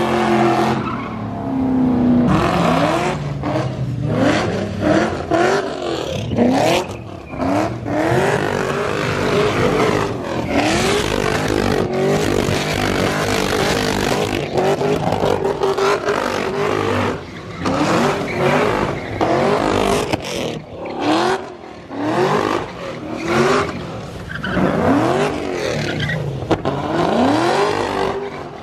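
Cars doing donuts and burnouts, including a Cadillac CTS sedan: engines revved hard in repeated rising and falling sweeps over the hiss and squeal of spinning tyres on wet pavement.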